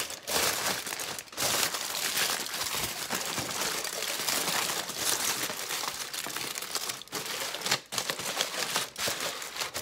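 Aluminium foil crinkling steadily as it is pressed and wrapped around a glass, with a few brief pauses.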